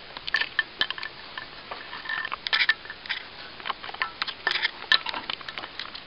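Irregular metallic clinks and taps, some with a short ring: a replacement twig breaker being handled and fitted into its slot in the metal housing of a Wallenstein BX42R wood chipper.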